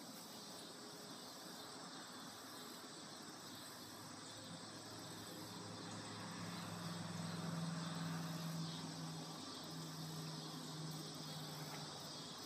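Steady chorus of insects in the grass on a summer evening. A low hum swells in the middle and then eases off.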